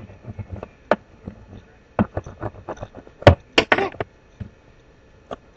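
Irregular knocks and taps of craft things being handled on a tabletop close to the webcam microphone, with a cluster of louder knocks and a short rustle about three and a half seconds in.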